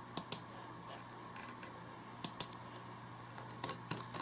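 Laptop keyboard keys tapped in short clusters of two to four clicks, over a faint steady hum.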